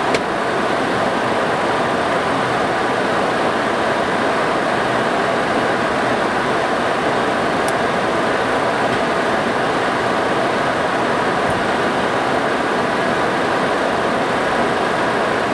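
Steady rushing cockpit noise of an MD-80 airliner in descent: air streaming past the nose and windshield over the hum of the engines and cabin systems, even and unchanging.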